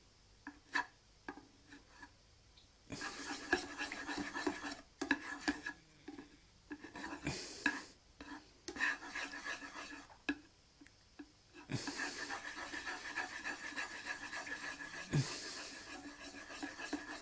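A kitchen utensil scraping and rubbing around a frying pan as butter melts in it, in several stretches of a few seconds, with a few light taps in the first seconds.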